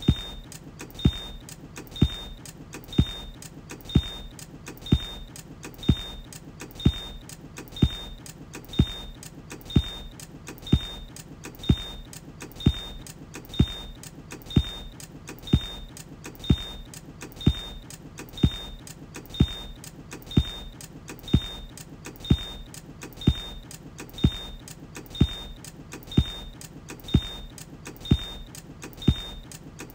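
A steady electronic loop: a deep thump about once a second, each followed by a short high blip, over a low steady hum.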